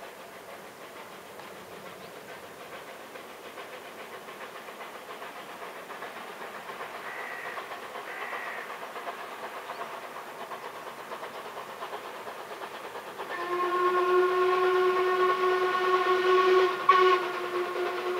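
Steam locomotive pulling away, its working sound growing slowly louder, then its steam whistle blowing one long steady blast from about two-thirds of the way in, with a short dip near the end.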